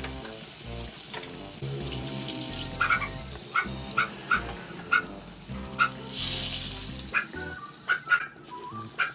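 Hot oil sizzling in a wok as fried tilapia is lifted out with tongs, with a louder swell of sizzle about six seconds in. Background music with a bass line and a regular tick plays underneath.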